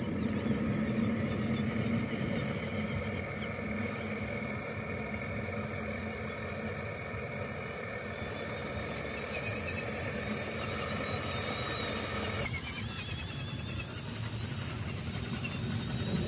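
Radio-controlled toy dump truck running on a dirt track, a steady motor and drivetrain noise with a faint whine. The sound changes abruptly about twelve seconds in.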